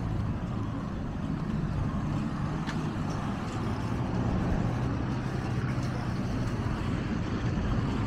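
A steady low engine hum with street background noise.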